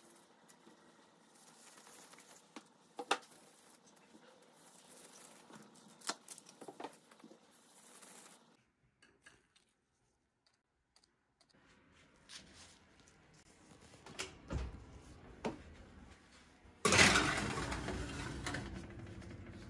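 Scattered small clicks and knocks from handling an aluminium baking tray, then, about three seconds from the end, a sudden louder scraping rattle as the tray slides onto the oven's wire rack, fading over a couple of seconds.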